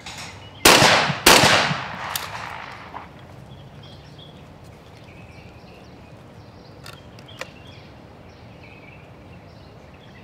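Two shotgun shots from an over-and-under skeet gun, about two-thirds of a second apart: a skeet double, one shot at each target. Each shot rings out with a long echo, and a few faint clicks follow later.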